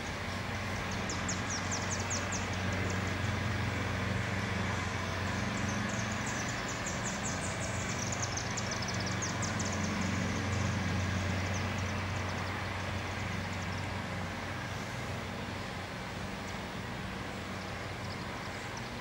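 Steady low motor hum with a faint wash of noise, like distant traffic. Over it, in the first half, come rapid high trills of a small bird, rising and then falling in pitch.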